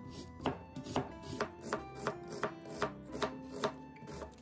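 Chef's knife slicing through an onion onto a cutting board: about ten even cuts, two or three a second, each a sharp knock of the blade on the board. Soft background music runs underneath.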